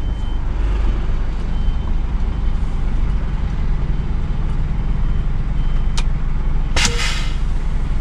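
Heavy truck's diesel engine running steadily at low speed, heard from inside the cab, with short high beeps now and then. A click comes about six seconds in, followed by a short loud hiss of air from the truck's air system.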